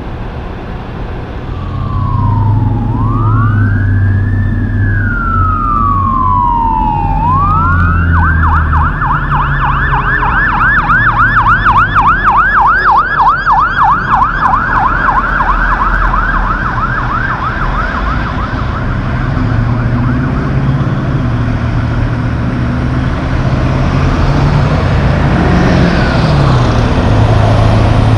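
Fire truck siren: two slow rising-and-falling wails, then a fast yelp for about ten seconds that fades away. Low engine and traffic rumble of passing trucks throughout.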